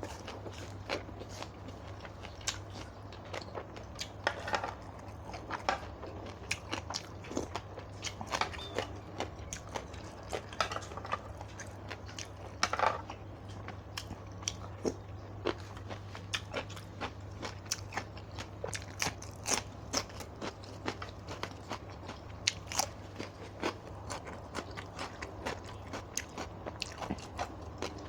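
A person eating close to the microphone: biting and chewing crunchy food, with many short, irregular crunches and clicks. A low steady hum runs underneath.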